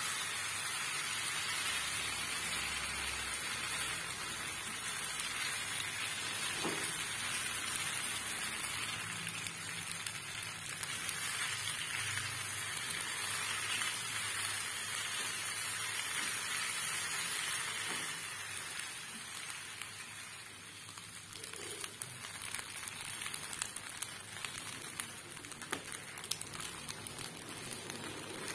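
Boiled macaroni frying and sizzling in a non-stick pan while a spatula stirs it through, with a steady hiss. The sizzle softens about two-thirds of the way in, and light clicks of the spatula against the pan follow.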